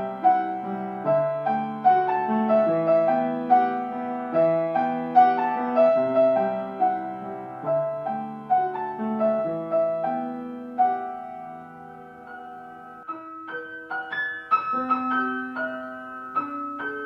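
Solo piano music, many notes struck and left to ring in a flowing pattern. It thins out and softens about twelve seconds in, then resumes with higher notes.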